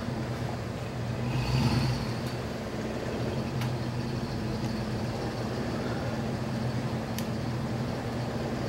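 Ford pickup truck's engine idling steadily, swelling briefly about a second and a half in.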